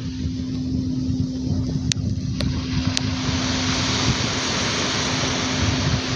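Crystal singing bowl holding one steady tone, under a low rumble of wind on the microphone.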